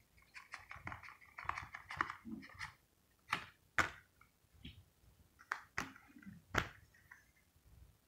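Handling of a Blu-ray case and its paper inserts: rustling and light clicks for the first few seconds, then several separate sharp clicks and taps.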